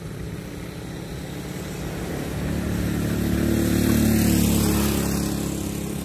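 Motor vehicle engine running steadily, growing louder about two seconds in, loudest near the middle and fading again, as a vehicle passes close by.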